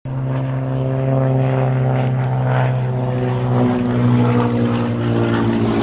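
Propeller aerobatic plane's engine droning steadily overhead.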